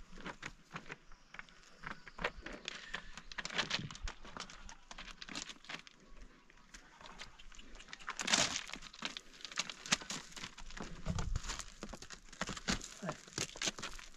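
Irregular rustling and crackling with many small clicks and knocks, the loudest burst about eight seconds in.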